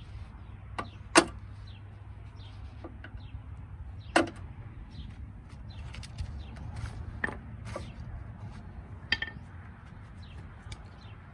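Hand tools clanking and knocking against a rusted bolt on a steel mower deck: two loud sharp strikes, about a second in and about four seconds in, with lighter taps and clicks between.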